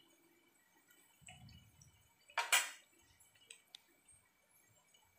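Batter-coated cauliflower pieces deep-frying in hot oil, a faint sizzle and bubbling. About two and a half seconds in comes one short, louder burst of hiss.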